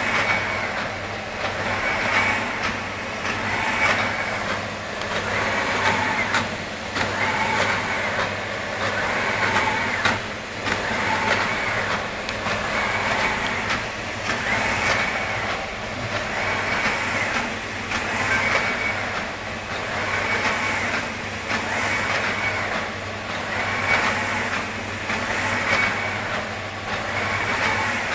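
OCE Arizona 350 XT flatbed UV printer printing: the print-head carriage travels back and forth across the bed, one pass about every two seconds, over the machine's steady low hum.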